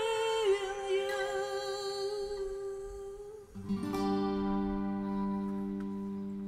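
Acoustic guitar and clarinet duo at the close of a ballad: a long held melody note with a wavering vibrato that slides slightly down. About three and a half seconds in, a final acoustic guitar chord is strummed and rings out, slowly fading.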